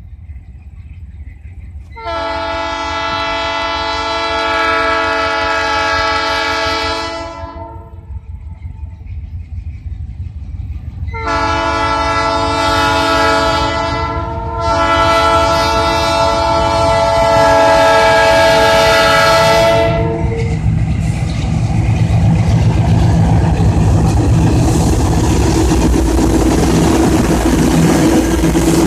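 Diesel locomotive's multi-tone air horn sounding three long blasts as it approaches a grade crossing, the crossing warning signal. After the horn, the locomotives' diesel engines and wheels on the rails are heard passing close, getting louder near the end.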